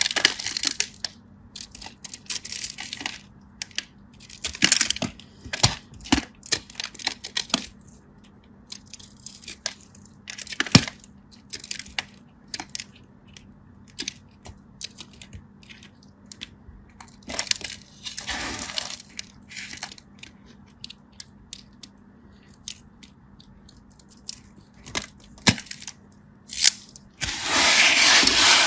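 Close-miked ASMR handling sounds: many sharp cracks and snaps, with several longer crinkling, tearing bursts, the longest near the end.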